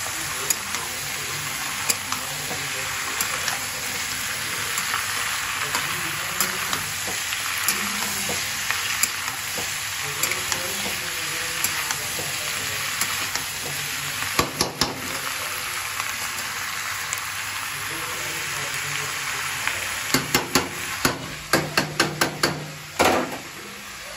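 Sliced onions sizzling in hot oil in a kadhai as they are stirred, with a steady frying hiss and scattered light clicks. A quick run of sharp knocks comes near the end.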